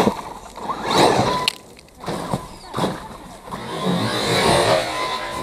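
Thunder Tiger E-MTA electric RC monster truck driving in bursts over dry leaves and dirt, its motor whining as it speeds up, with sharp knocks as it hits the ground, the sharpest at the start and about a second and a half in.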